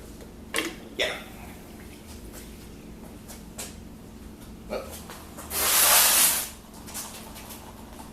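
A few sharp metallic clicks and clinks of tools and parts being worked on the engine's fuel rails and injectors, then a loud spraying hiss that lasts about a second, a little past halfway.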